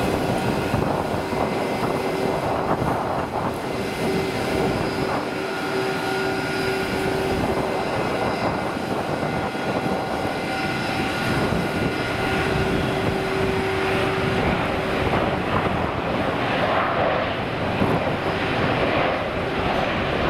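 Airbus A320-232's twin IAE V2500 turbofan engines running as the jet lands and rolls out along the runway: a steady jet rush with a held whine.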